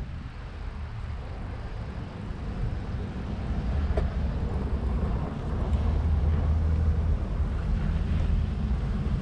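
Wind rumbling on an action camera's microphone on a moving bicycle, with the hiss of tyres rolling over packed snow, getting louder about halfway through as the bike speeds up. One sharp click about four seconds in.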